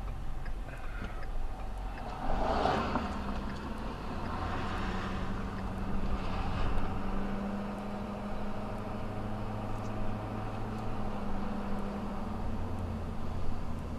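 A road vehicle's engine running with a steady low hum and rumble. There is a louder rush of noise about two and a half seconds in, with smaller swells a few seconds later.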